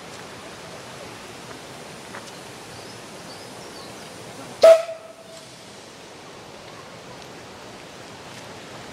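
Narrow-gauge steam locomotive Edward Thomas moving slowly along the track, with one short toot of its whistle about halfway through.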